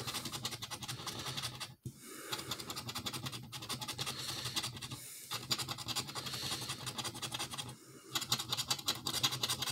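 Scratch-off lottery ticket being scraped with a small metal edge in quick, repeated strokes, with short pauses about two, five and eight seconds in.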